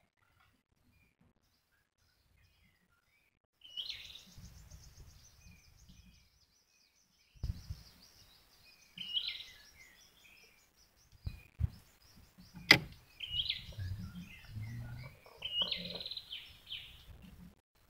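Wild birds chirping and singing in short phrases and trills, starting a few seconds in, over a low rumble. A single sharp click sounds about two thirds of the way through.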